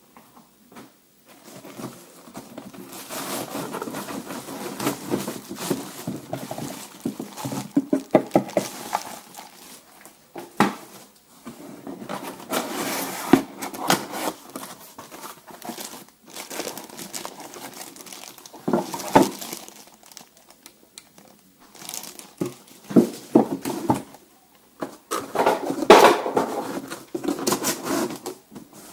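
Packaging from a cordless circular saw kit being handled and unwrapped by hand: irregular stretches of rustling and crinkling broken by sharp clicks and knocks, with short pauses between.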